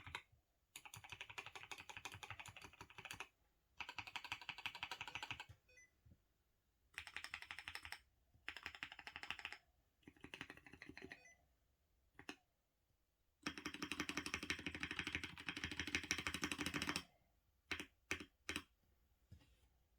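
Fast typing on a custom 75% gasket-mount acrylic sandwich mechanical keyboard with lubed Gateron KS3 Black switches, a polycarbonate plate and ASA-profile keycaps. The keystrokes come in quick bursts with short pauses between them; the longest burst lasts about three and a half seconds in the second half, and a few single strokes follow near the end.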